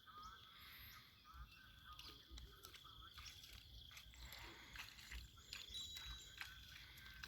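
Near silence: faint outdoor ambience with a steady high thin tone and scattered small clicks and faint calls.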